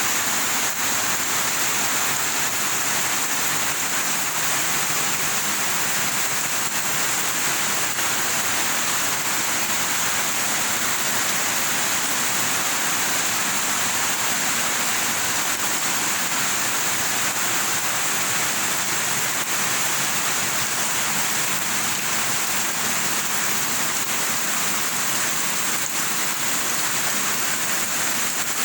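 Steady heavy rain, an even hiss with no letup.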